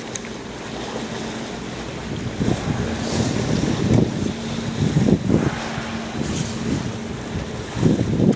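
Wind buffeting the microphone in irregular gusts that grow stronger a couple of seconds in, over the wash of the sea and a boat's steady low engine hum.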